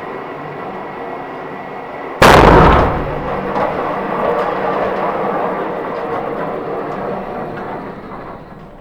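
A single shot from an Uberti 1873 Sporting Rifle, a lever-action, about two seconds in. It is followed by several seconds of slowly fading noise.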